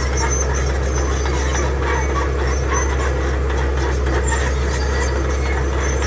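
Komatsu crawler bulldozer's diesel engine running steadily under load as its blade pushes gravel, with a light clatter of tracks and stones.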